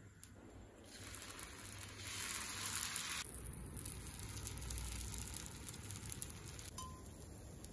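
Adai batter sizzling on a hot, oiled dosa griddle as it is poured and spread with a ladle. The hiss rises about a second in and is loudest for the next two seconds or so. It then settles to a lower, steady sizzle and drops away near the end.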